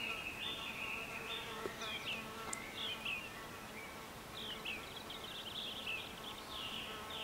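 Flies buzzing steadily close by, a droning hum with many overtones, with short high chirping notes scattered over it.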